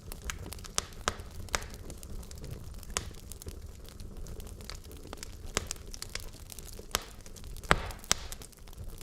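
Logs burning in a fireplace, crackling with irregular sharp pops over a low, steady rumble of the flames. One louder pop comes near the end.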